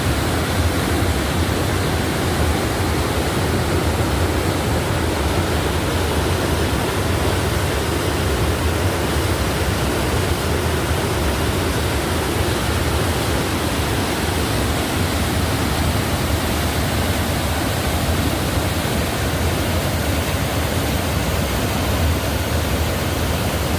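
Ohiopyle Falls on the Youghiogheny River rushing in high flow: a steady, loud wash of falling white water that does not change.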